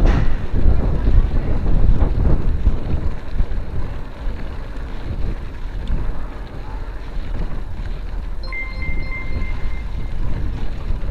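Wind rushing and buffeting over the microphone while riding a mountain bike, a steady low rumble. About eight and a half seconds in, a thin high steady tone sounds for about a second and a half.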